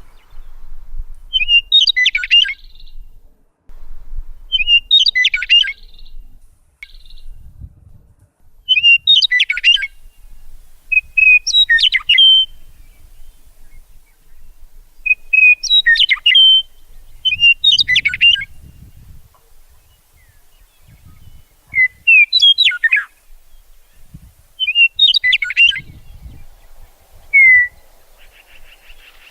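A songbird singing, repeating a short chirping song phrase about eight times at intervals of a few seconds, with a single short note near the end.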